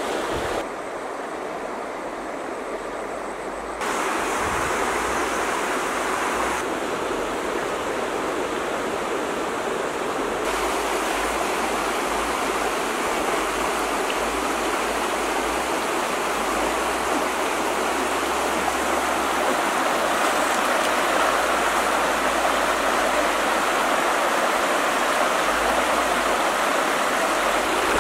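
Steady rushing of a shallow flowing stream, its tone and level shifting abruptly a few times, about 1, 4, 6.5 and 10.5 seconds in.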